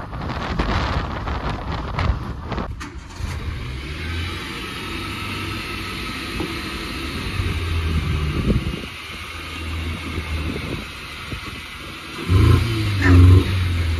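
Renault Clio Mk2 car engine running, with wind noise on the microphone for the first few seconds and a short, louder rev near the end.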